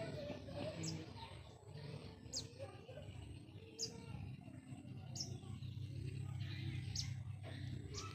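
A bird chirping: short, high-pitched, falling chirps repeated about every second or so, over a steady low hum.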